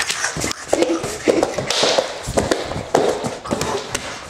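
Scuffling close to the microphone: a quick, irregular run of taps and thumps, with short bits of voice and a brief hiss about two seconds in.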